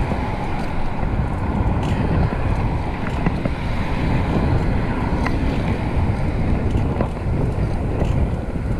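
Steady wind rush on an action camera's microphone and road rumble from a moving fixed-gear bicycle, with a few faint clicks.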